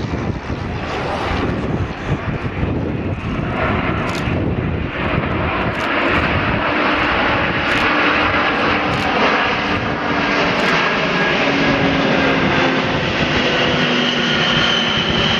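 The four turbofan engines of an Antonov An-124 running as it flies past. The noise swells over the first five seconds or so and then holds loud, with a whine whose pitch slowly falls.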